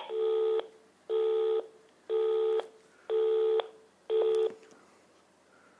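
Telephone busy tone after the call is hung up: five beeps of one low pitch, each about half a second on and half a second off.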